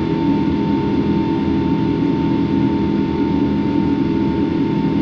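Steady in-flight cabin drone of a Boeing 777-200 with Pratt & Whitney engines: an even low hum with a thin, steady whine above it.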